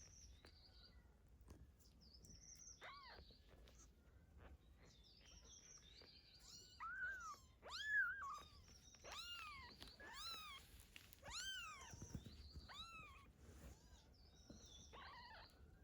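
Kitten mewing repeatedly: a string of short, high, rising-and-falling mews, loudest about halfway through.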